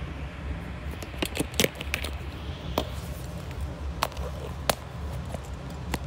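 Hands handling small parts and tools: a quick cluster of sharp clicks and rattles about a second in, then single clicks every second or so, over a steady low hum.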